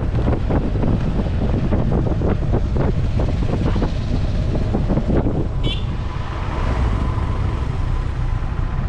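Low vehicle rumble with wind buffeting the microphone in gusts, then a short high chirping sound a little past halfway, after which the buffeting eases.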